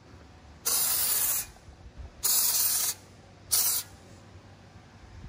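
Cleaner sprayed as foam from a foam sprayer onto the greasy inside of an aircraft propeller spinner, in three hissing bursts: two of nearly a second each and a short final one.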